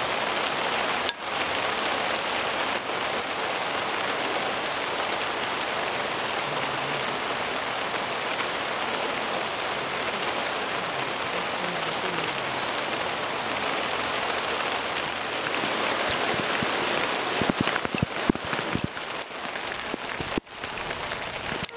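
Steady rain falling on umbrellas and wet paving, an even hiss throughout, with a few sharp knocks and taps near the end.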